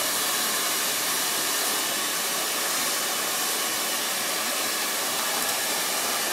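Hand-held blow dryer running steadily as it dries a dog's coat: an even rush of air with a faint motor whine.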